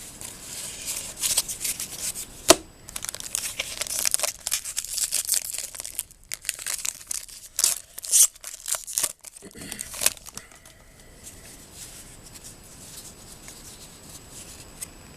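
Plastic trading-card pack wrapper being torn open and crinkled by hand, with a dense crackle that goes on for about ten seconds and then dies down.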